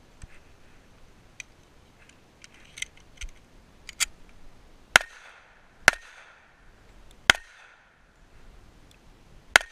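A few light clicks and knocks of the pistol being handled, then four shots from an M1911 pistol firing handloaded .45 ACP rounds. The shots start about halfway in and come a second or more apart, each a sharp crack with a short ringing tail.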